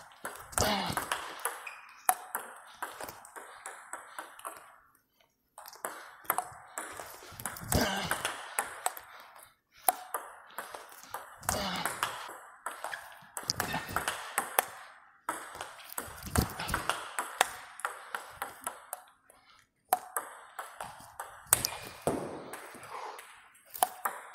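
Table tennis rallies: a celluloid/plastic ball clicking sharply off rubber-faced paddles and the table in quick regular runs of topspin strokes, broken off several times by short silent gaps.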